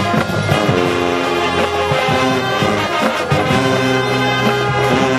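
High school marching band playing, its brass section sounding loud held chords over drum hits.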